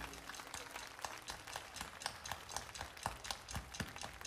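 Sparse audience clapping: a thin, uneven patter of separate hand claps.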